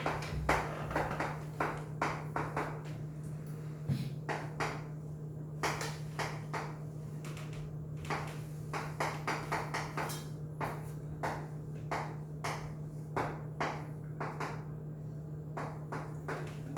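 Irregular light taps and clicks, a few a second, over a steady low hum.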